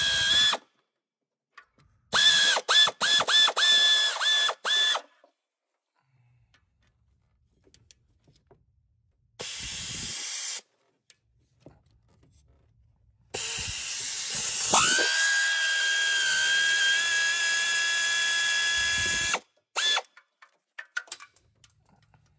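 A cordless power tool's electric motor whines in repeated trigger bursts as it works 10 mm bolts on the stock exhaust manifold. There are quick blips, then a short run, then a long run of about six seconds near the end.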